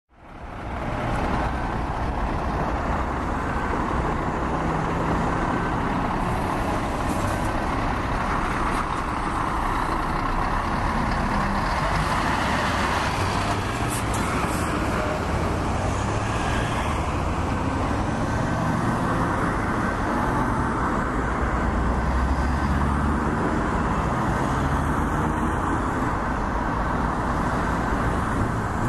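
Continuous highway traffic: cars and trucks passing in a steady stream of tyre and engine noise with low engine rumble, fading in over the first second.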